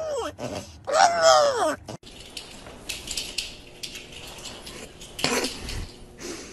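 French bulldog giving two drawn-out howling whines, each rising then falling in pitch, in answer to being asked to wish someone happy birthday. After a cut, a scatter of light clicks and knocks, with one louder rasping sound a little past five seconds in.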